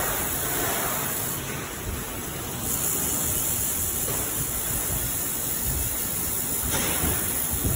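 A steady, even rushing noise with no clear rhythm or pitch.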